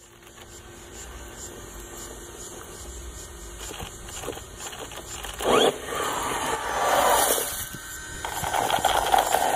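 Axial EXO Terra RC buggy's electric motor whining in bursts as it is throttled up a dirt climb, with a sharp rising whine about halfway through and more rising and falling whines near the end, over the tyres scrabbling in loose dirt.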